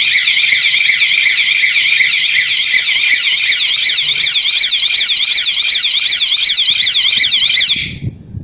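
Alarm siren of an S120 GSM alarm panel sounding after the beam sensor is tripped: a loud, high electronic tone warbling rapidly up and down several times a second. It cuts off near the end.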